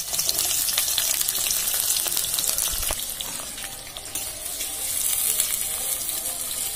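Chopped onions frying in hot oil with whole garam masala in an aluminium kadai: a steady high sizzle with small crackles, easing off briefly about four seconds in.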